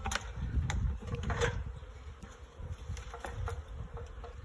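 Swarm of honeybees buzzing, a faint steady hum, over a low rumble on the microphone with a few short clicks.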